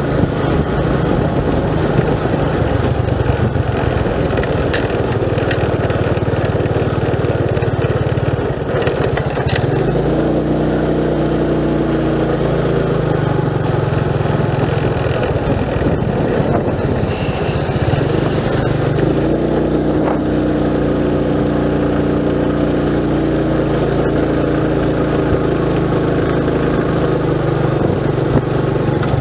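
Motorcycle engine running while riding, its note shifting about ten seconds in and rising and falling again around twenty seconds in.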